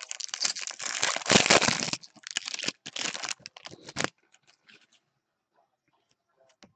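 Foil wrapper of a jumbo baseball card pack being torn open and crinkled, loud for about two seconds and continuing in crackly bursts until about four seconds in. Then only faint rustling and ticks as the stack of cards is handled.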